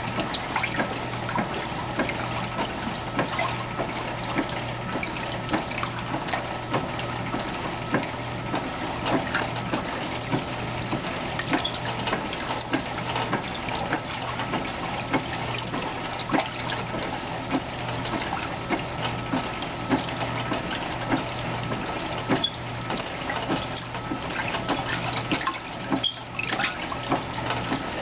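Viking wringer washer agitating a load of laundry: water sloshing and splashing irregularly in the tub over a steady low hum.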